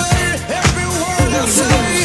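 Background music with a steady drum beat about twice a second and a gliding melody over it.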